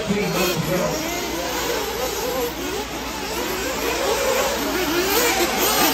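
Several radio-controlled off-road racing buggies running on a dirt track, their motors rising and falling in pitch over and over as they accelerate and slow through the corners.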